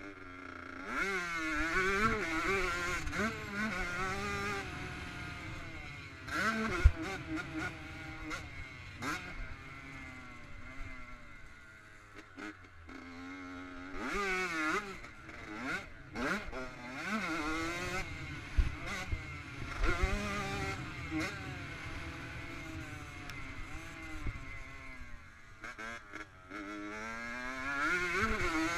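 Honda CR85 two-stroke dirt bike engine revving hard and backing off again and again as it is ridden through the turns and straights, its pitch climbing and falling with each shift and throttle change. Wind buffets the helmet-mounted microphone, and there is a sharp knock about seven seconds in.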